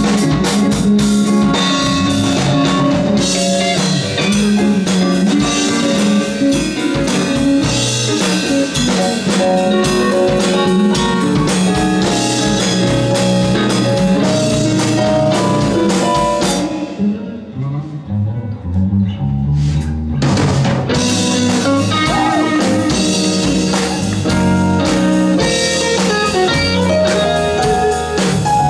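Live rock band playing: electric guitar, bass guitar, drum kit and keyboard. About seventeen seconds in, the drums and upper instruments drop out for about three seconds, leaving only low notes, then the full band comes back in.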